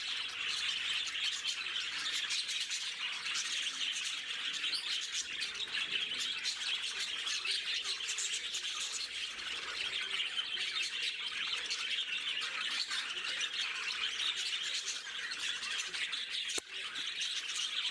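A flock of budgerigars chattering and squawking together, a dense steady mass of overlapping chirps.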